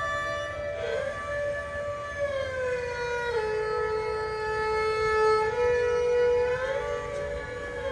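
Background music: a slow melody of long held notes that glide smoothly from one pitch to the next.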